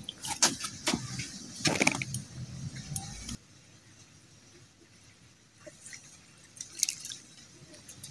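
Wet splashing, dripping and sharp slaps from a freshly caught crucian carp being landed and handled in the water. The splashing stops abruptly about three seconds in, leaving only faint scattered drips and clicks.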